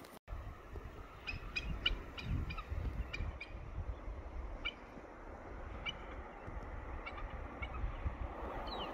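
Birds calling: about a dozen short pitched calls at irregular intervals, then a brief falling whistle near the end, over a steady low rumble.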